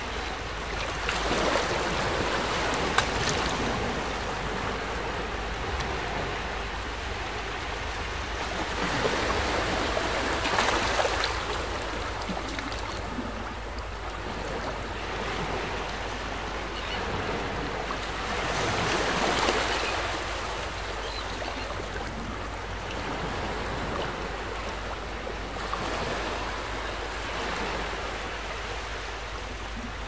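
Sea waves breaking and washing on a shore. The surf swells roughly every eight seconds between a steady wash, with one short sharp tick about three seconds in.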